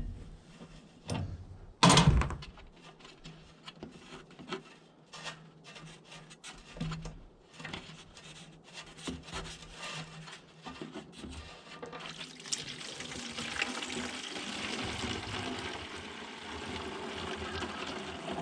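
Light clicks and knocks of metal fittings being handled, then, about twelve seconds in, a steady run of liquid pouring that keeps on to the end.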